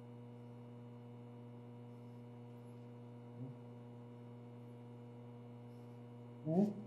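A steady low electrical-sounding hum. A brief faint voice sound comes about halfway through, and a voice starts just before the end.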